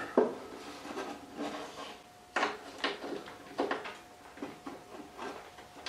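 Scattered clicks and knocks of a hinged-head socket wrench on an extension and hands bumping the wooden TV cabinet, as the chassis bolts under it are worked loose.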